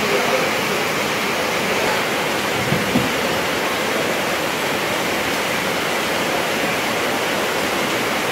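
Steady hiss of light drizzling rain.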